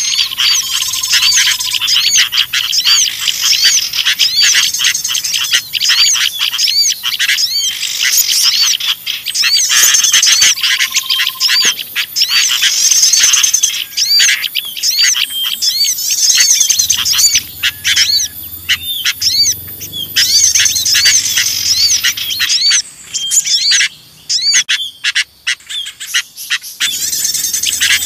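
Bird-lure recording of a busy chorus of small birds mixed with sooty-headed bulbuls, all chirping and twittering rapidly and excitedly over one another. The calls thin out briefly near the end.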